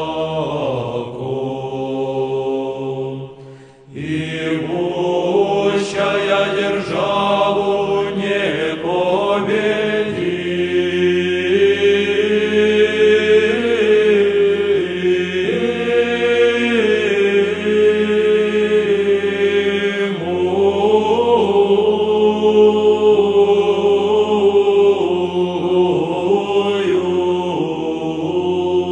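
Male monastic choir singing Russian Orthodox chant a cappella, a low held bass note sounding under the slowly moving melody. The singing breaks off briefly about four seconds in, then resumes on a new phrase.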